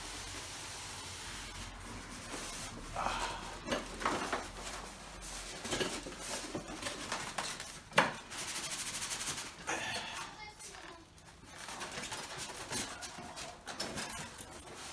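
Packaging and parts being handled while a stud welder kit is unboxed: rustling, scraping and light clattering, with one sharp knock about eight seconds in followed by a brief rasping run.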